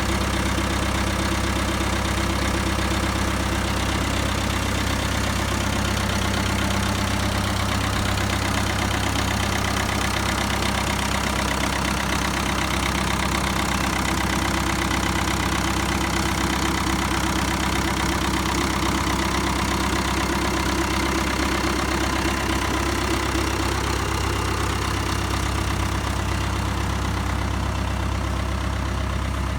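Ford 7710 farm tractor's diesel engine idling steadily.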